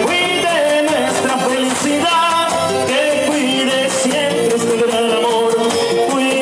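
Instrumental vallenato music, a melody line played over the band.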